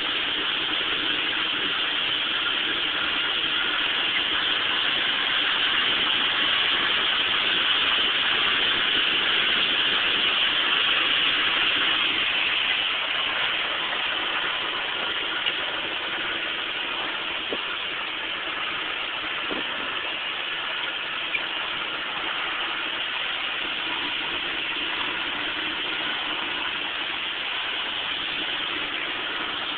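Logging truck's engine running steadily while driving, heard from inside the cab. It swells a little for several seconds, then eases back, with a couple of faint clicks.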